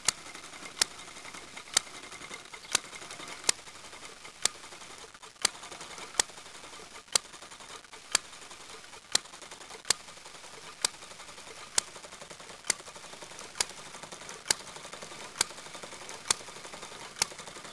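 Model open-crank four-stroke petrol engine running on its hit-and-miss governor: a sharp firing bang about once a second, with light mechanical ticking from the engine between the bangs. The evenly spaced firings with coasting strokes between them are the governor cutting in and out, holding the exhaust valve open whenever the engine overspeeds.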